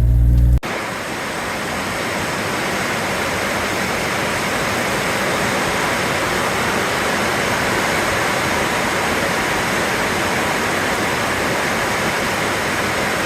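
A low engine drone cuts off abruptly about half a second in. A steady, even rushing hiss like falling water or rain replaces it.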